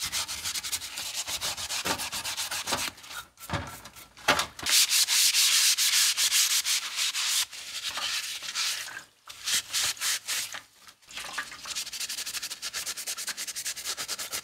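Green abrasive scouring pad scrubbing metal air hammer parts in a tray of soapy water: quick back-and-forth rubbing strokes. There are short breaks, and a louder, more continuous stretch of scrubbing comes about five seconds in.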